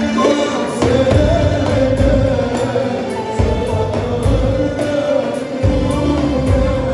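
Live Arabic pop music from a band on stage, with a male singer over it: a long held melody line carried over a steady drum and bass beat that comes in about a second in.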